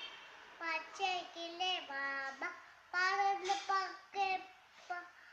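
A young girl singing a school rhyme in short sung phrases with brief pauses between them.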